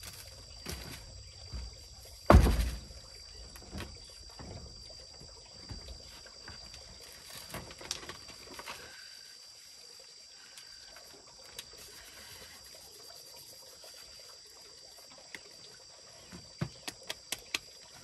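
Heavy stone millstone of a hand grain mill set down with a loud thump on a bamboo plank deck about two seconds in, with lighter knocks and scrapes of the stones being shifted around it. A quick run of light clicks near the end.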